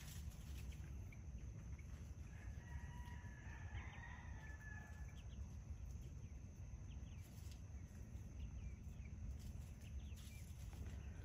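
Chickens calling faintly, with one drawn-out, even-pitched call from about two to five seconds in.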